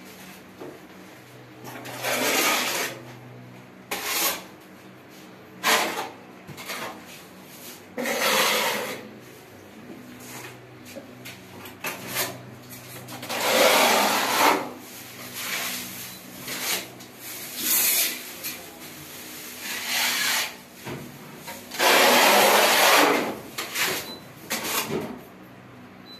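Irregular rubbing and scuffing noises, about a dozen bursts of a second or so each, the longest near the middle and near the end, over a faint low steady hum.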